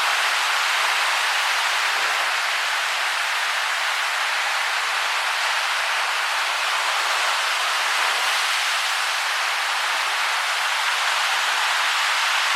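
Rough, storm-churned Atlantic surf breaking continuously, a steady, even hiss of waves with no let-up.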